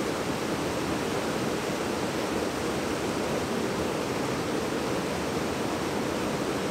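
Creek water rushing steadily over a boulder cascade into a pool, an even, unbroken noise.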